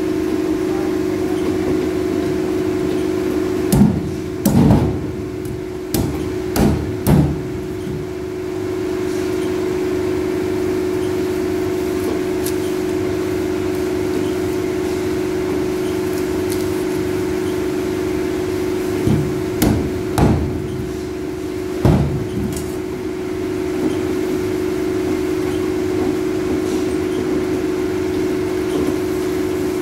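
Cleaver being knocked through a fish into a cutting board with a mallet: sharp thuds, a group of about five some four seconds in and another of about four near twenty seconds. A steady machine hum runs underneath.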